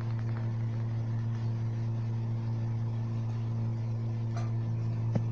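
A steady low hum with a faint click near the end.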